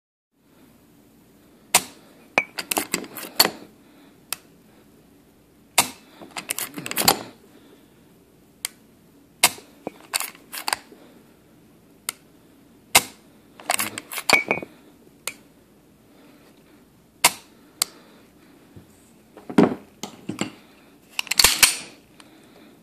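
Dry-fire clicks from a CZ75 SP01 Shadow pistol with a Cajun Gunworks disconnector: a sharp click as the trigger breaks and the hammer falls, each followed by a quick run of smaller clicks as the action and trigger are reset, repeating every few seconds.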